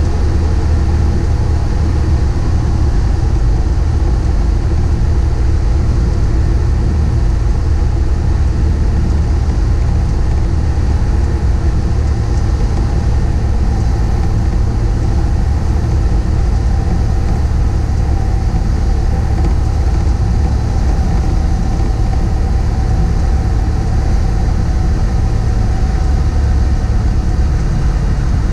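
Piston engine and propeller of a single-engine light aircraft running steadily, heard from inside the cockpit as a loud, even drone.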